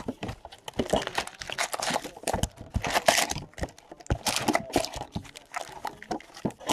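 A cardboard trading-card box of 2016 Panini Donruss Soccer being unwrapped and opened: crinkling, tearing wrapper and rustling cardboard. Foil card packs crackle as they are pulled out and handled, a dense run of quick crackles and clicks.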